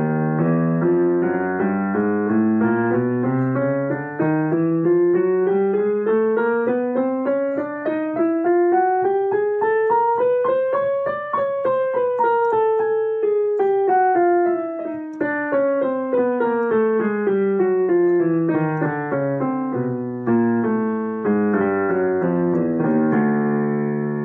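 Piano playing a chromatic scale: an opening chord, then single notes climbing steadily step by step for about eleven seconds and coming back down the same way, closing on a held chord near the end.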